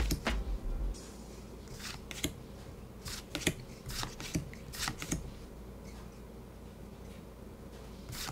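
Pokémon trading cards being slid and flicked one by one through a handheld stack: short papery rustles and snaps, several in the first half, thinning out after about five seconds.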